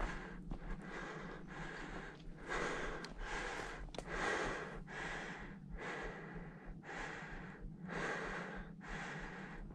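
A person breathing hard and fast close to the microphone: even, rhythmic in-and-out breaths, each a short rush of air, from the effort of hiking up a steep brushy slope.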